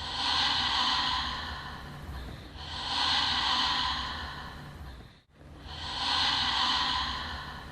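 A spooky breathing sound effect: three long, heavy breaths in a row, each swelling up and fading away over about two and a half seconds.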